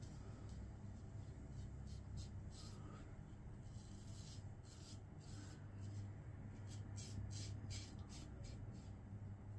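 Safety razor scraping stubble through shaving lather in short strokes, about two or three a second with brief pauses, over a faint steady low hum.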